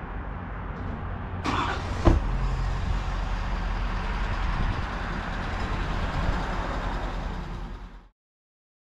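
Motor vehicle running, a steady low engine and road rumble, with a brief louder rush of noise about one and a half seconds in and a sharp knock just after it; the sound cuts off abruptly near the end.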